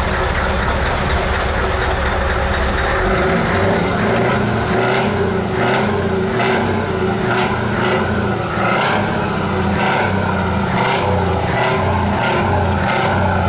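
Scania truck diesel engine running through an open, straight exhaust pipe, a loud steady rumble. From about three seconds in it takes on a regular pulsing beat, a little more than once a second.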